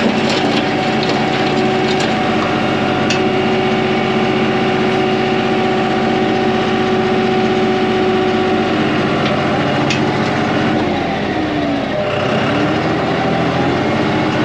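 Tractor engine running steadily while pulling a land plane, with gravel and dirt crunching under the blade and the scarifier shanks, and a few sharp clicks of stones. Near the end the engine note sags and recovers a couple of times under changing load.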